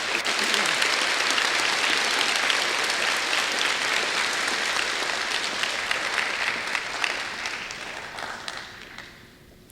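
Audience applauding to welcome a speaker: steady clapping from a large crowd that thins and dies away over the last few seconds.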